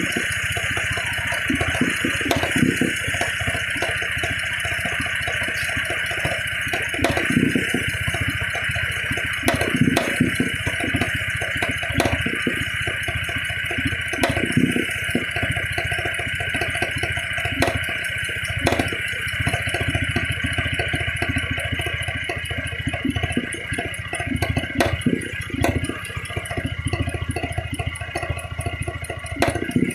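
Toyota 1MZ-FE V6 engine running, with a sharp, irregular knock every second or few. The knock comes from the disintegrated catalytic converter core, whose loose pieces jump about inside the housing.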